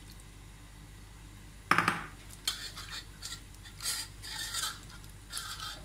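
A glass bowl knocks down onto the counter, the loudest sound, about two seconds in. Then a hand rubs wet spice marinade into raw chicken skin in a steel tray, a series of short, wet rubbing sounds.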